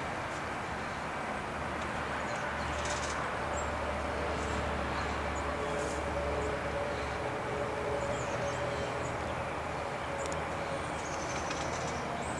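Steady outdoor background rumble with no sound from the squirrel. A faint held tone runs through the middle, and a few faint high chirps come near the end.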